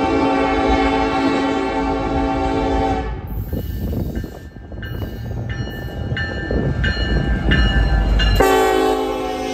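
Norfolk Southern diesel freight locomotives passing close by. The air horn sounds a long chord that stops about three seconds in. Then short repeated tones come about twice a second over the deep engine rumble, and the horn sounds long again near the end.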